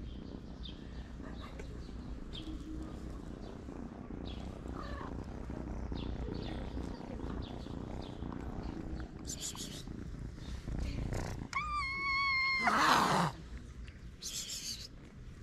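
Street cats purring under a hand as they are petted, a low rumble with light scratchy rustles. About three-quarters of the way through, a cat gives one drawn-out, even meow of about a second, followed straight away by a short harsh noise that is the loudest sound.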